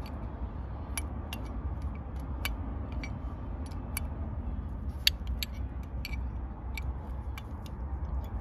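Open-ended spanner clicking on a brake pipe union nut as it is tightened into a new rear brake caliper a bit at a time: about a dozen sharp metallic clicks at irregular intervals, one louder about five seconds in, over a steady low rumble.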